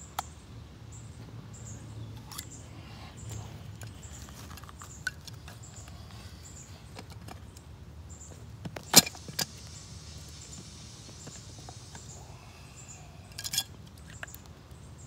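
Hands working on plastic sprinkler valve parts, making scattered clicks and knocks of plastic pieces being handled. The sharpest knock comes about nine seconds in, and a quick cluster of clicks comes near the end.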